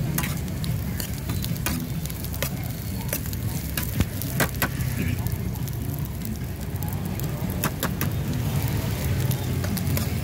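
Corn kernels sizzling as they are stir-fried in a shallow metal pan. A metal ladle and spatula scrape and clink against the pan, with the sharpest clinks about four seconds in. A steady low rumble runs underneath.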